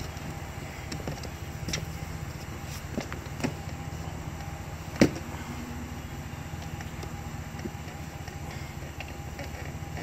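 A steady low mechanical hum runs throughout. Over it come a few light knocks and clicks as a plastic shore power cord hatch and its cord are handled and the hatch is pressed against the trailer's siding. The sharpest knock comes about halfway through.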